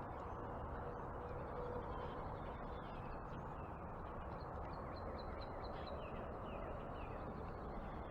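A songbird singing a quick run of about eight short, falling notes, starting about halfway through, over faint, steady background noise.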